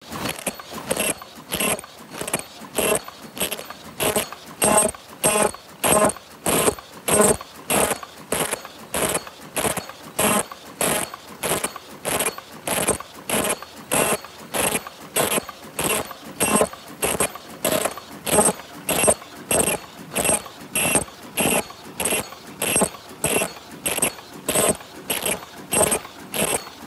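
High-speed open-cam paper cup making machine running, its mechanism clattering in a steady, even rhythm of about two strokes a second.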